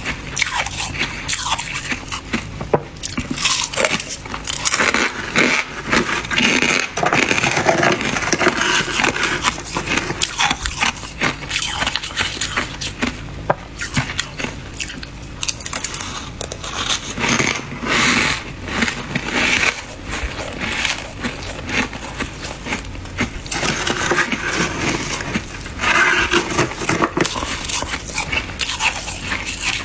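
Thick, crunchy freezer frost being scraped: a dense, irregular run of crackling, crunching scrapes, coming in louder spells.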